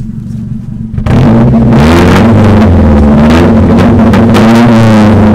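1995 Nissan 240SX S14's 2.4-litre four-cylinder engine heard at the exhaust: idling, then revved hard about a second in, its pitch rising and falling as the throttle is worked. The owners say it has real bad gas in it and blame that for it nearly dying.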